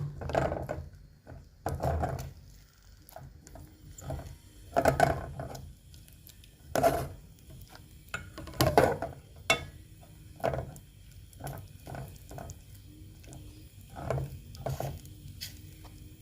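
A utensil stirring and scraping thick tangzhong (cooked flour-and-water paste) in a pot, in irregular strokes about a second or two apart, as the paste thickens into a lump.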